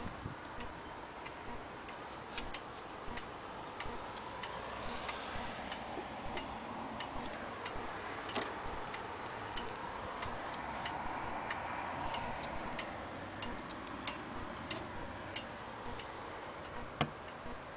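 Vintage German Hermle pendulum wall clock ticking, with a sharp, even tick about two times a second.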